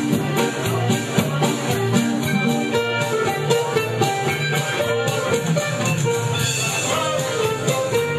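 Music with a steady, quick beat and many held instrumental notes.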